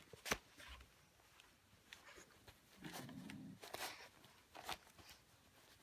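Faint crinkling and soft clicks of torn wrapping paper as a dog noses through it, with one sharp click about a third of a second in.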